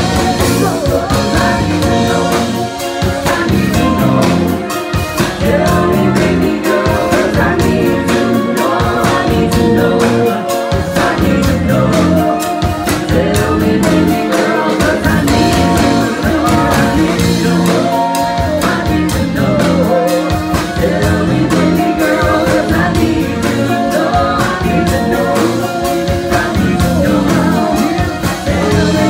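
Live band playing loudly, with singing, electric guitar and a steady drum beat.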